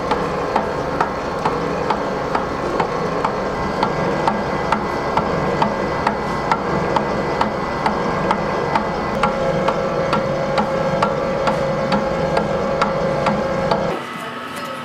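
Large commercial stand mixer running, beating cake batter in its steel bowl, with a regular tick about twice a second; the machine noise stops abruptly near the end.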